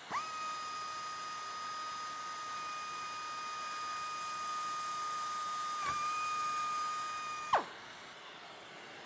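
Pneumatic air drill spinning up to a steady high whine while drilling a carbon-fibre panel through a vacuum drill shroud. The whine dips briefly about six seconds in and cuts off with a sharp click. A portable HEPA vacuum hisses steadily underneath and keeps running after the drill stops.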